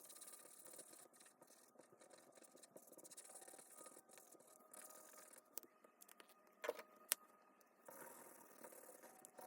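Faint handling noise of toys being moved about, with two sharp clicks about seven seconds in.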